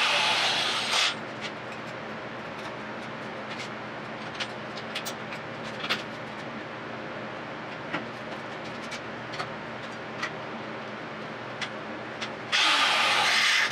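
Power grinder grinding steel, which stops about a second in and leaves a steady motor hum with scattered small clicks. Loud grinding starts again about a second before the end.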